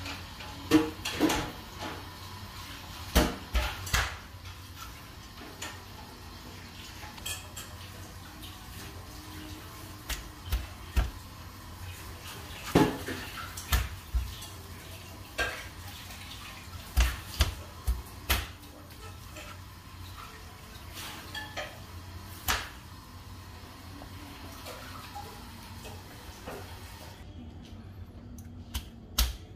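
Chef's knife cutting roasted chicken on a plastic cutting board: irregular sharp knocks of the blade striking the board, with short gaps between them.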